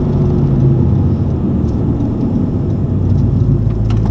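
Honda Civic Type R's turbocharged four-cylinder running at low revs, around 1,700 rpm, while the car slows, heard from inside the cabin with tyre and wind noise. A few faint clicks come near the end.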